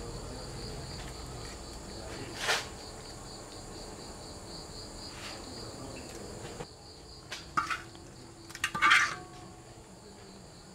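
Crickets chirping in a steady, pulsing high trill. Over it come a few short scraping, rustling noises; the loudest two fall in the second half.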